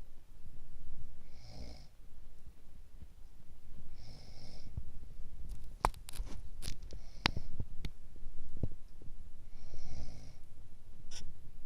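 A woman with a cold snoring in her sleep, one snore with each breath every few seconds. A run of sharp clicks or knocks comes about halfway through, with one more near the end.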